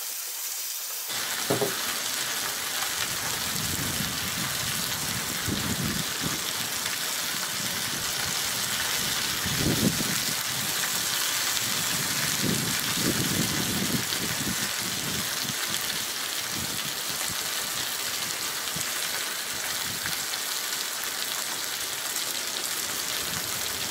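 Chicken thighs sizzling steadily on a hot griddle plate over a portable gas burner, growing louder about a second in, with a few soft knocks in between.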